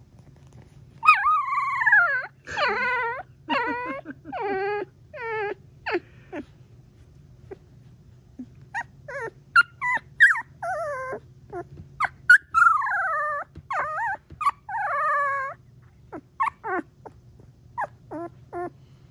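Three-week-old golden retriever puppy trilling: a string of short, high, quavering whimper-like calls whose pitch wavers and falls. The calls come in two bouts with a pause of about two seconds between, then a few shorter ones near the end.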